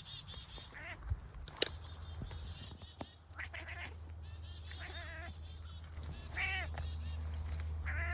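F4 Savannah cat chattering at birds in a duck-like cackle: several bouts of rapid, quacking pulses. A sharp click about one and a half seconds in.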